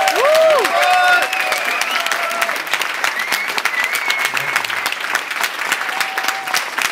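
Audience applauding steadily after a spoken-word performance, with a few whoops and cheers in the first second or so.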